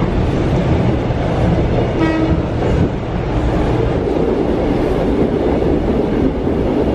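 Steady running rumble of a 1970s Japanese-built third-rail electric train, heard from inside the car as it rolls along the line, with a brief pitched tone about two seconds in.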